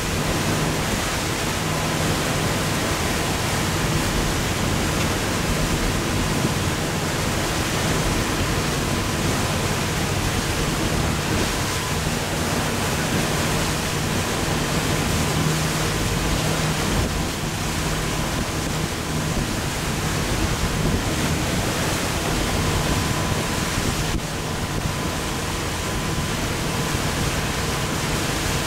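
Steady rush of wind and water aboard a Beneteau Oceanis 45 sailboat heeled over under sail in rough water, with a faint steady low hum underneath.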